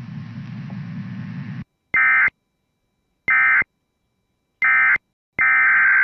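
Emergency Alert System SAME data bursts. A low hum stops, then three short identical bursts come about a second and a half apart: the end-of-message code, sent three times. Near the end a longer burst starts, the opening of the next alert's header.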